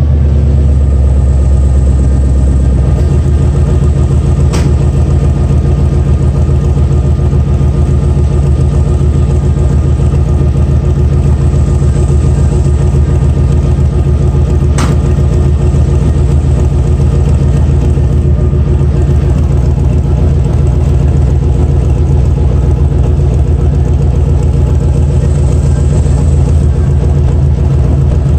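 5.7 liter V8 idling steadily through a 2.5 inch dual exhaust with shortie headers, no catalytic converters and Cherry Bomb Salute mufflers, a deep even rumble that is heavier for the first few seconds before settling. Two brief clicks are heard, about five and fifteen seconds in.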